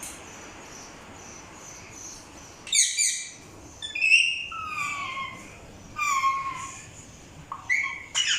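Parrot calling in four loud bouts of pitched calls, starting about three seconds in, several of them sliding down in pitch.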